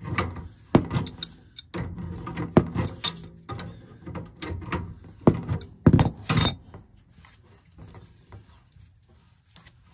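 Hand wrenches clinking and knocking on the gas flex connector fitting as it is loosened from the furnace gas valve: a string of irregular sharp metal taps that stops about six and a half seconds in.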